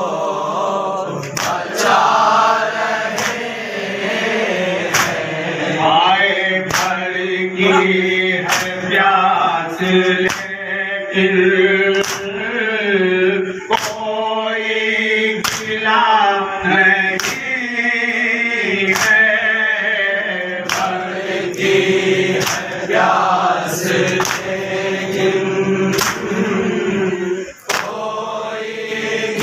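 A group of men chanting a Muharram noha (lament) in chorus, with matam hand-strikes on the chest landing on the beat about once a second.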